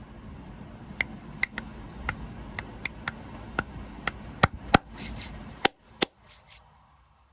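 Plastic snack wrapper being handled and opened: about a dozen sharp clicks and crackles, irregularly spaced, with a couple of short crinkles near the end. A low background noise cuts off suddenly near the end.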